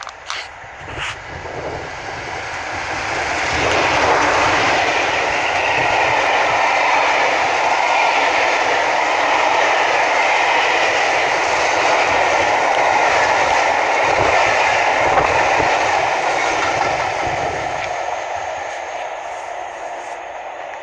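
A Class 47 diesel locomotive and its train pass by: the rumble and rail noise build over about four seconds, hold loud for more than ten seconds, then fade. Two sharp knocks come near the start.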